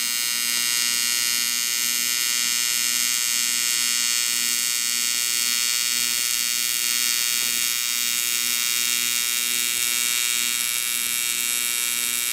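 TIG welding arc buzzing steadily as a flange is welded onto a turbo charge pipe: a loud, high-pitched electric buzz with a faint low pulse about twice a second.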